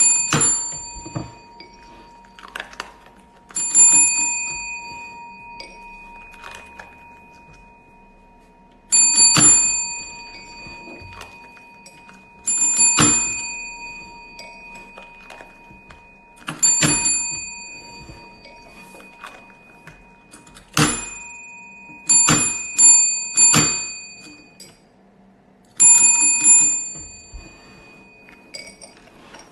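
Chrome desk service bell struck about ten times by a dachshund's paw, each strike a bright ding that rings on and fades, with a dull thunk of the plunger and paw on the wooden table. Three dings come in quick succession a little past the middle.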